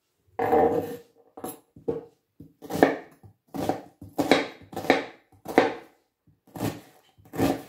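Kitchen knife chopping an onion on a bamboo cutting board: a steady run of about ten knocks on the board, roughly one every two-thirds of a second.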